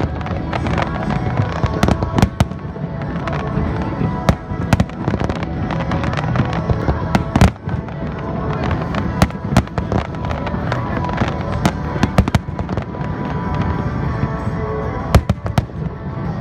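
Fireworks bursting overhead in a rapid, irregular string of bangs, dozens in the span, with music playing underneath.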